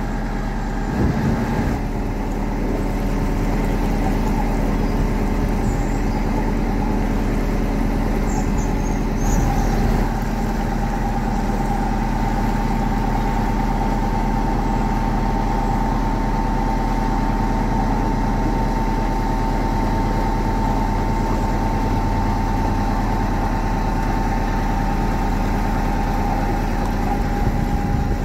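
Narrowboat engine running steadily under way, with a steady high whine joining about ten seconds in.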